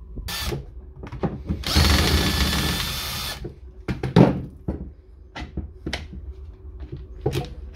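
A power screwdriver or drill-driver whirs for about a second and a half, backing screws out of the core drill's casing. Sharp clicks and knocks of the tool and parts being handled come before and after it.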